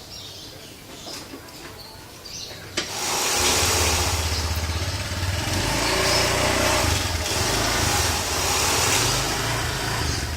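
A sharp click, then an engine starts about three seconds in and keeps running with a steady low rumble.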